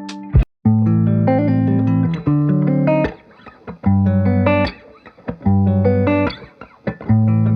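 Background music with plucked guitar and bass in short phrases, broken by brief gaps.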